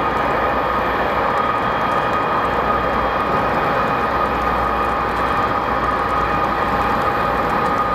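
Jet airliner's turbofan engines running at low taxi power: a steady whine over a low rumble.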